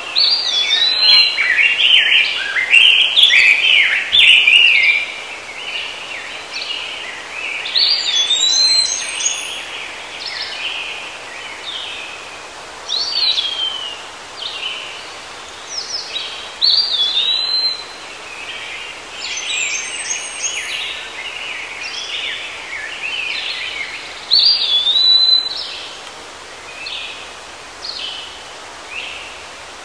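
Several birds calling and singing: busy chirping, with a short hooked whistle repeated every few seconds, over a steady background hiss.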